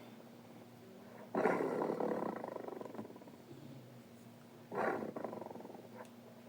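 Bengal tiger sound effects: two short roars, one about a second and a half in and a shorter one near five seconds, each dying away, with a quieter low rumble between them.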